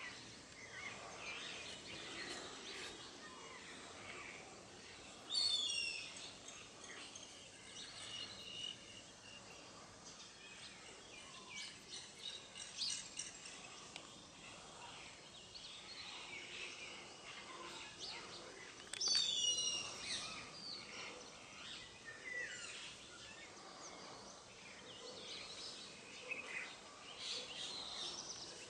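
Indian grey hornbills calling over a background of scattered bird chirps. The loudest sounds are two short runs of high, falling notes, about five seconds in and again near twenty seconds.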